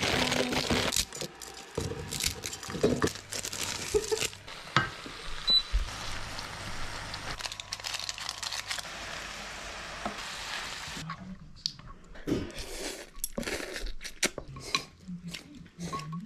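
Plastic instant-noodle packet crinkling and tearing open, loudest in the first second, followed by the rustle of a seasoning sachet and light knocks of pots and utensils.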